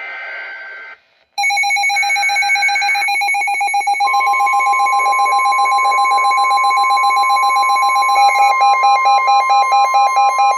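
Emergency Alert System alert on weather radios, announcing a tornado warning. It opens with a short burst of data tones, the SAME header. About a second and a half in, a radio's alert alarm starts beeping rapidly, and about four seconds in a steady single warning tone (the NOAA 1050 Hz alert tone) sounds over it, with the beeping changing pattern near the end.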